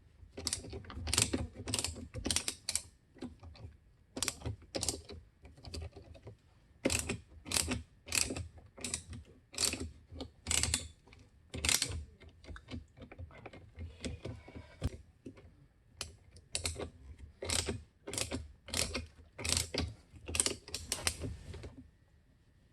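Ratchet clicking in short runs, a few clicks a second, as small hex-head screws are backed out of a water softener's control valve. The clicking stops shortly before the end.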